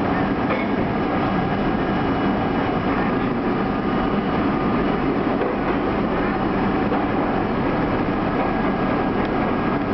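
R32 subway car running through an underground station, heard from inside the leading car: a loud, steady rumble of wheels on rail and running gear.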